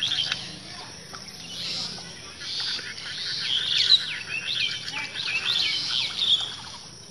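Birds chirping in short, quick sweeping notes, busiest from about three to six and a half seconds in, over a fast, even ticking pulse.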